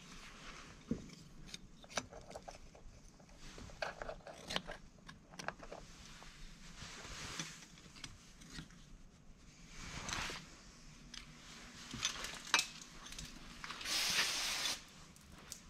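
Scattered light metallic clinks and clicks of tools and engine parts being handled, with a brief hiss near the end.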